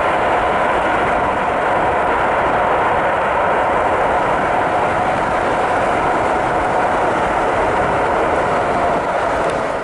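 Airbus A380 airliner's four jet engines, Engine Alliance GP7200s, running steadily as it rolls out along the runway after landing: a loud, even roar with a steady whine in it that fades out at the very end.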